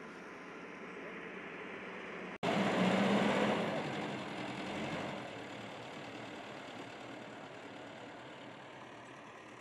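Backhoe loader's diesel engine running as it digs earth. It comes in abruptly about two and a half seconds in, is loudest for the next couple of seconds, then settles to a lower steady running.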